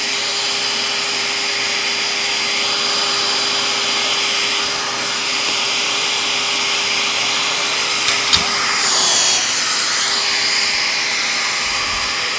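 Motor of a SeamerDownNow! carpet seam weight running with a steady whir, blowing air to cool the freshly heat-set seam tape. A couple of light knocks about eight seconds in.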